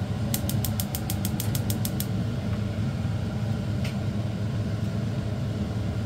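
Gas hob's spark igniter clicking rapidly, about seven clicks a second for under two seconds as the burner is lit, with one more click a little later, over a steady low hum.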